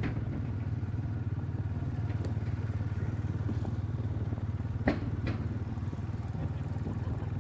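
Motorcycle engine running steadily at a low pitch while riding, with two sharp knocks close together about five seconds in.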